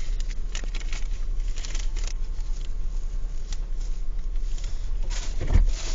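Rustling and crinkling of food packaging and condiment packets being handled, many small irregular crackles, over a steady low hum. A louder bump comes near the end.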